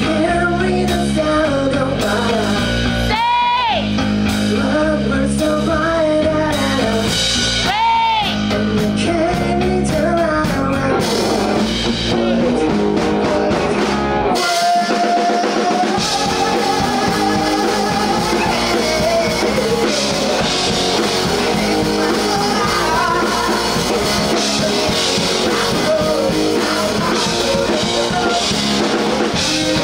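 Rock band playing live: singing over electric guitar and drums. About 14 seconds in, the bass and drums drop out for a moment under a held note, then the full band comes back in.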